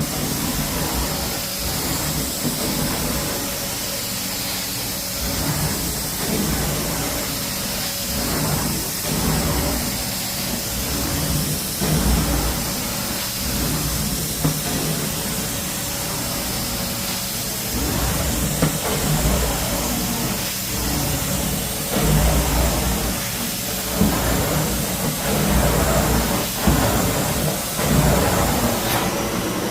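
Carpet-cleaning extraction machine running with a steady vacuum-and-spray hiss, with uneven low surges every second or two as the wand is worked in strokes across the carpet.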